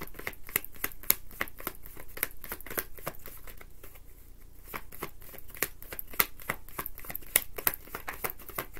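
A deck of tarot cards being shuffled by hand: quick papery card-on-card clicks and flicks, several a second, easing briefly about four seconds in.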